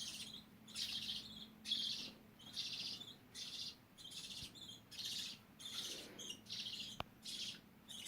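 Budgerigar calling over and over, about one short high call a second in a steady rhythm. A single sharp click comes near the end.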